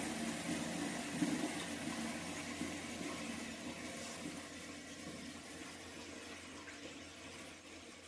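Water rushing through a one-piece western toilet as it flushes, the rush fading steadily away.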